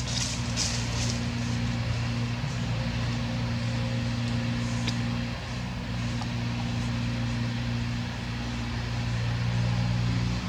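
A steady low engine hum, like a motor vehicle running nearby, with a slight dip in level a little past halfway.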